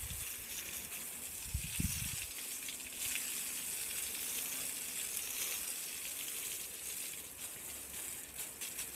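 Garden hose spraying water onto a painted wall: a steady hiss of spray that grows stronger about three seconds in. A couple of low thumps come just before that.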